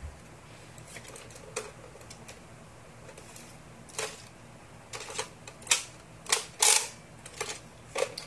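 Plastic toy foam-dart blaster being handled, cocked and fired: sharp plastic clacks and snaps, a couple of single ones and then a quicker run of louder ones in the second half.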